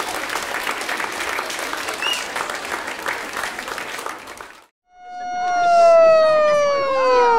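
Audience applause that stops about four and a half seconds in. After a brief silence, a loud tone with overtones starts and slides slowly down in pitch.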